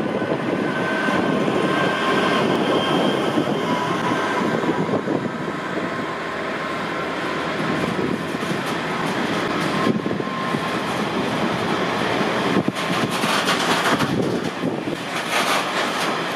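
GBRf Class 66 diesel freight locomotive, with its two-stroke V12 engine, passing close by, followed by the continuous rumble and clatter of a long train of engineering wagons running over the rails. The rattle grows brighter and harsher in the last few seconds.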